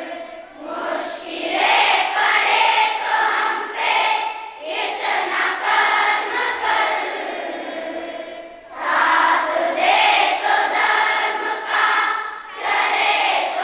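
Large group of schoolchildren singing a prayer together, in phrases of about four seconds with short breaks for breath between them.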